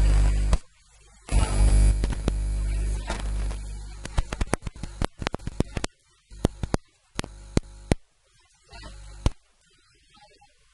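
Electrical mains hum buzzing in the audio, cutting in and out several times, with a run of sharp crackling clicks in the middle; it stops about nine seconds in.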